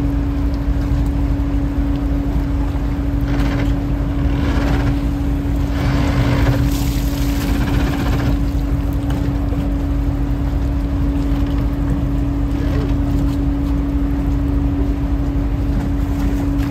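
Fishing boat's engine running with a steady hum over a low rumble. A few seconds in, water and whitebait pour from a dip net into a plastic basket with a rushing splash, three times over about five seconds.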